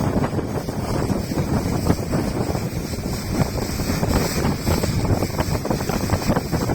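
Wind buffeting the microphone aboard a boat at sea: a loud, dense rushing noise that keeps fluttering up and down.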